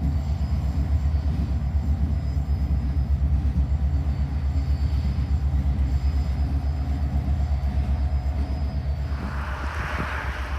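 Canadian Pacific freight train rumbling steadily past, heavy and low, with a hiss coming in near the end.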